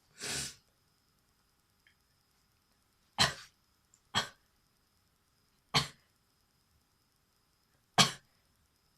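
A person forcing out sneeze-like bursts of breath while trying to make herself sneeze. A softer, longer burst comes at the start, then four sharp, loud bursts one to two seconds apart. She does not quite manage a full sneeze.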